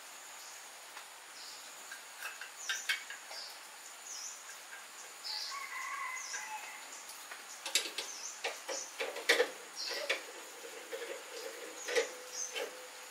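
Light clicks and knocks from a metal spit and a bamboo tube being handled and set onto a metal grill stand, most of them in the second half. Birds chirp in the background.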